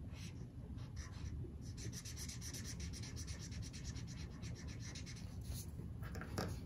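Crayola felt-tip marker drawing on paper in quick short strokes, a dry scratching that comes thickest in a run of several strokes a second through the middle.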